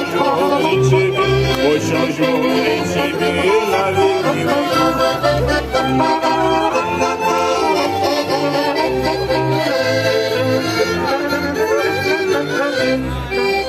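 Live band music from an amplified stage, with held melody notes over a pulsing double bass line.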